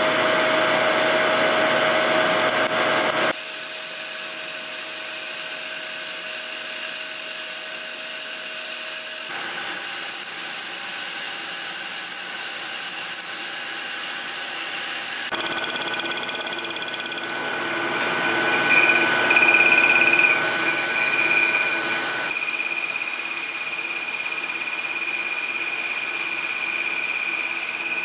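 Milling machine spindle running with an end mill cutting into a 1911 pistol slide to lower and flare the ejection port: a steady machining whine over a hiss, with a compressed-air nozzle blowing the chips away. The sound shifts abruptly several times, and is loudest with a shrill ringing tone about two-thirds of the way through.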